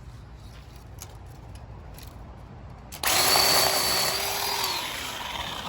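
Ryobi One+ 18V 10-inch cordless chainsaw's electric motor starting abruptly about three seconds in, running at a steady high pitch for under two seconds, then winding down with falling pitch.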